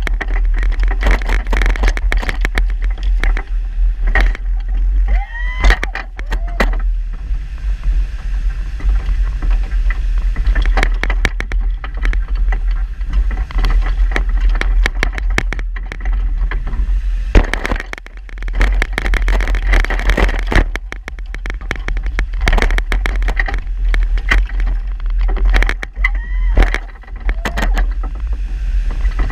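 A small snowplow vehicle's engine running as its plow blade pushes and scrapes through snow, with frequent knocks and rattles from the plow rig. A short rising and falling whine comes about five seconds in and again near the end.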